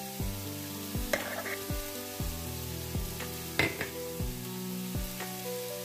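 Background music with a steady beat and held notes, over a steady sizzling hiss from meat browning in a pot.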